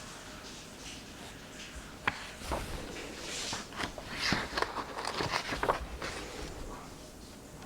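A book page being turned: a sharp click about two seconds in, then a few seconds of crisp paper rustling as the page is handled.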